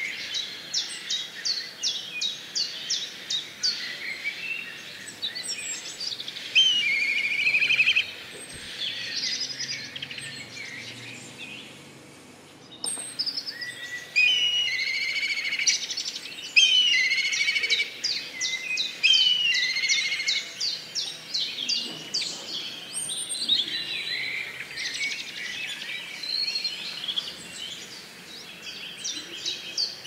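Black kite calling: shrill, quavering whinnying trills made of rapid high notes, in repeated bouts. There is a brief lull about twelve seconds in, after which the calling resumes abruptly.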